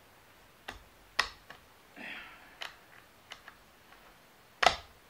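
Metal clicks and clacks of an AKM rifle's parts being fitted back together by hand during reassembly, about seven in all, with a short sliding scrape about two seconds in and the loudest clack near the end.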